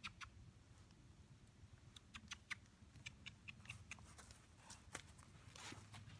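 Faint scattered clicks and crackling rustle of a horse stepping over dry grass and hay close by, getting denser as the horse comes right up near the end.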